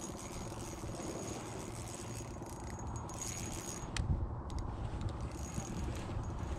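Spinning reel and rod being handled: a fine mechanical rattle that stops with a sharp click about four seconds in, followed by low, gusty wind rumble on the microphone.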